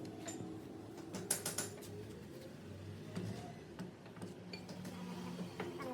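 Metal clicks and rattles from lathe parts being worked, over a low steady machine hum, with a cluster of sharp clicks about a second and a half in.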